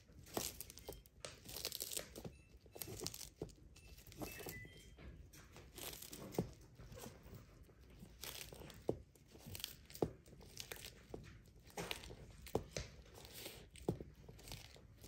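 Sulcata tortoise eating, with irregular crunches and tearing sounds as it bites and pulls at its food.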